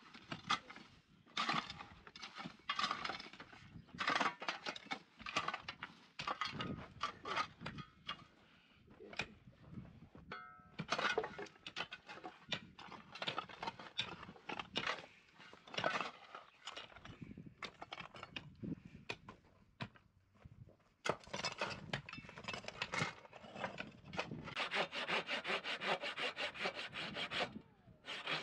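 Long-handled shovels scrape and scoop into stony soil, one stroke after another at an uneven pace. Near the end, a hand saw cuts through a wooden pole in quick back-and-forth strokes.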